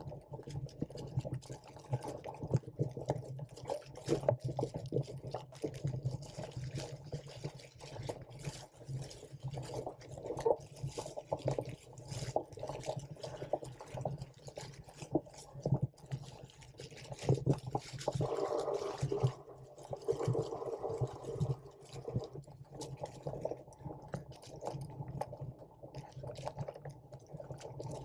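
Muffled, irregular knocking and rumbling from a mounted camera jolting as it travels over rough grass.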